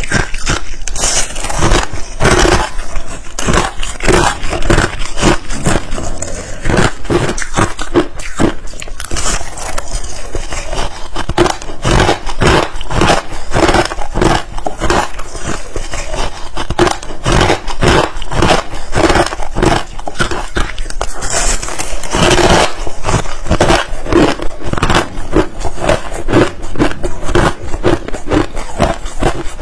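Ice being bitten and chewed close to the microphone: a rapid, continuous string of crunches and cracks, several a second.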